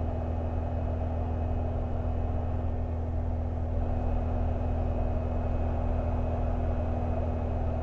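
Cessna 172's 180 hp piston engine and three-blade constant-speed propeller droning steadily, with power added to hold altitude in slow flight at about 40 knots, near the stall.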